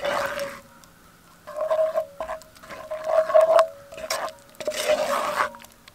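Wooden spoon stirring thick oatmeal in a cast-iron Dutch oven, scraping against the pot in about five strokes of half a second to a second each.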